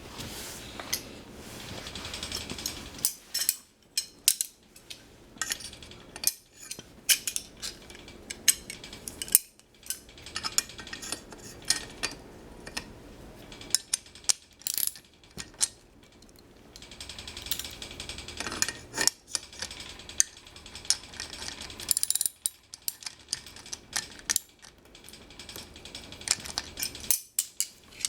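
Hand tools working on a wheelchair wheel and its hub: irregular metal clicks, clanks and ratchet-like clicking, with scraping between them.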